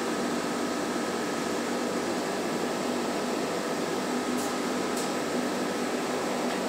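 Madrid Metro Line 1 train heard from inside the carriage as it pulls out of the station: a steady mechanical hum and rush with a faint constant whine.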